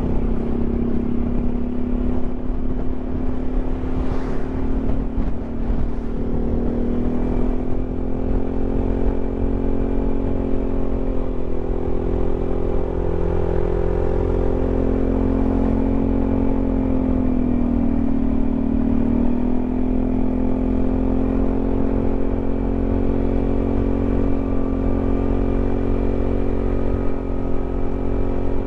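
Yamaha XMAX 300 scooter's single-cylinder engine running at a steady cruising speed on the road, its pitch sagging briefly about two-thirds of the way through and then rising back. A dense low rumble runs under it.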